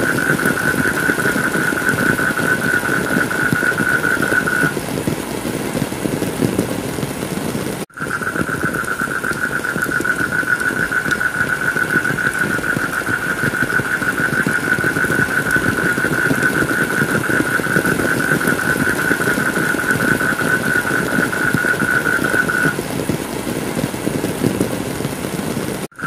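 Heavy rain, a dense steady noise, with a steady higher hiss layered over it that stops about five seconds in, returns after about eight, and stops again near the end. The track cuts out for an instant about eight seconds in and again just before the end.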